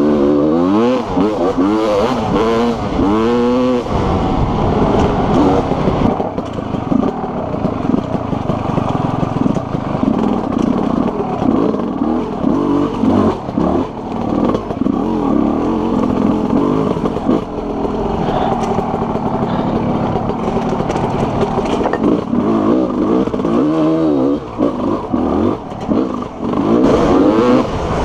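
TM Racing 300 two-stroke enduro engine being ridden on a dirt trail, heard from the rider's helmet. The revs rise and fall quickly over the first few seconds, run more evenly through the middle, then climb and drop again in a few quick bursts near the end.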